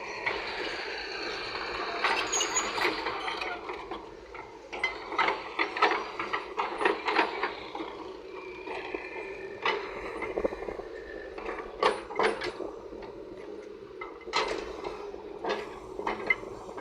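Excavator at work: a steady engine hum under repeated sharp metallic clanks and knocks, with a hiss during the first few seconds.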